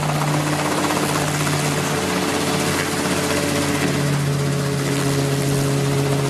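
Homemade ultralight helicopter's engine and main rotor running at hovering power just above the ground: a loud, steady drone whose engine note shifts slightly lower about four seconds in.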